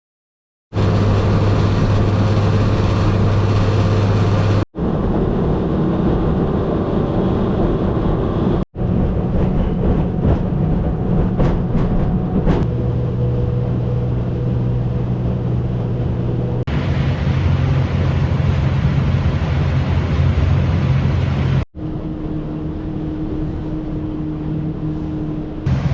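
Boat motor running steadily under way, in several short clips cut together, each with a slightly different steady hum. A few sharp knocks come around the middle.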